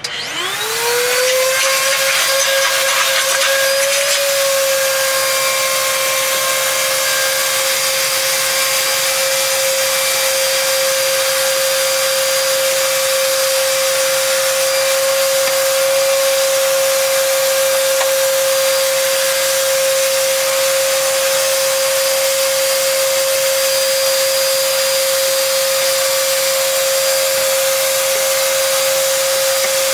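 Vacuum cleaner switched on, its motor spinning up within about a second to a steady high whine over a rush of air, then running on without change.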